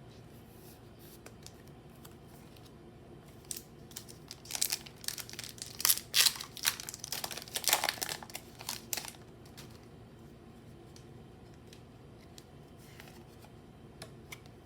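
Foil booster-pack wrapper being torn open and crinkled: a run of crackling and ripping in the middle, several seconds long, with a few faint clicks near the end.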